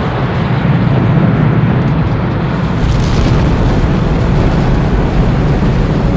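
Space Shuttle rocket engines roaring at launch: a dense, steady rumble that grows fuller, both deeper and with more hiss, about two and a half seconds in.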